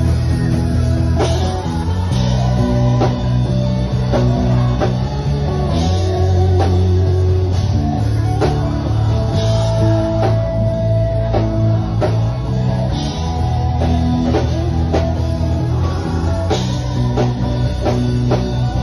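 Electric bass guitar playing a lick of low, held notes that change every second or so, over a drum beat.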